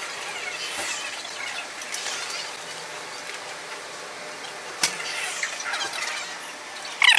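Rubber squeaking on a polished floor: short high-pitched squeaks that come and go, with a sharp click about five seconds in and a louder squeak near the end.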